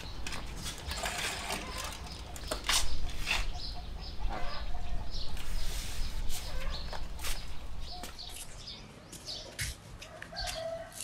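Domestic chickens clucking, with scattered short scuffs and rustles.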